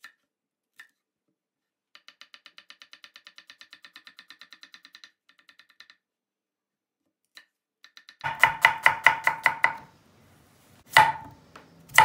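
Kitchen knife chopping on an end-grain wooden cutting board. A quick, even run of light strokes slicing an onion starts about two seconds in. A louder fast run of chops follows about eight seconds in, and two single heavier cuts near the end slice through a potato.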